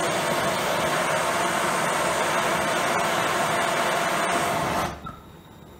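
Hand propane torch flame and a compressed-air jet blowing into a small brass swirl chamber, a steady loud rushing hiss with a faint hum in it. It drops away sharply about five seconds in, leaving a much fainter hiss.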